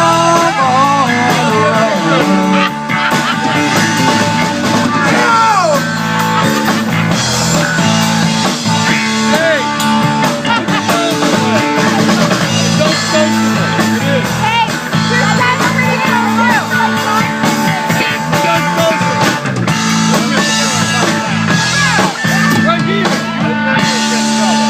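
Rock band playing an instrumental passage: electric guitar with bending lead notes over bass and drum kit.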